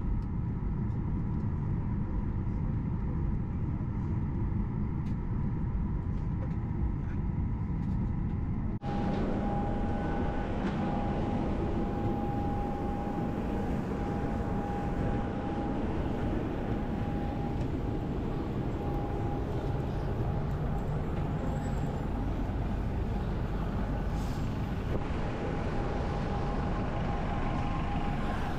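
Steady cabin rumble of a Boeing 737-800 taxiing, with a faint engine whine. About nine seconds in it cuts to louder open-air airport apron noise: a steady rumble and whine from the parked jet and the idling apron buses.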